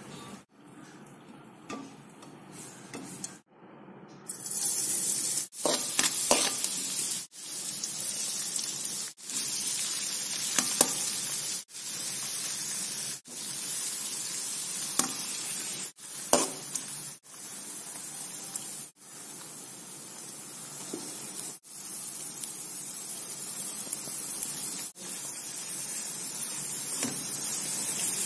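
Chopped garlic, ginger and chillies, then shredded cabbage, carrot and beans, sizzling in hot ghee in a metal wok while being stirred with a metal spatula, with an occasional sharp scrape or tap of the spatula on the pan. The sizzle starts about four seconds in and breaks off briefly every second or two.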